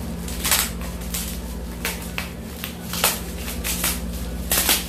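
Plastic bubble wrap being handled and peeled off a small packaged item: irregular crinkling and crackling rustles, with the loudest burst near the end, over a steady low hum.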